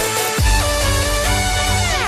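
Electronic background music with a deep bass line; the bass drops out briefly at the start, and a falling swoop comes near the end.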